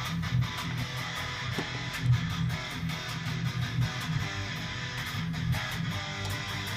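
Guitar strummed in a steady run of chords.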